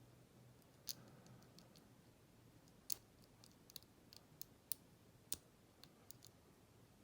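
Faint, irregular metallic clicks of a lock pick and tension wrench working the pins inside a Kryptonite padlock's six-pin brass cylinder, with a few sharper clicks standing out.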